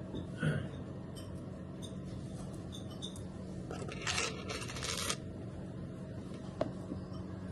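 Small handling noises over a steady low hum: a few light ticks, about a second of rustling or scraping around four seconds in, and a single sharp click near the end.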